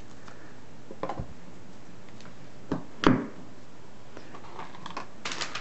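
Small plastic toy pieces handled by hand: a few scattered clicks and taps, the loudest about three seconds in, then a quick run of clicks near the end.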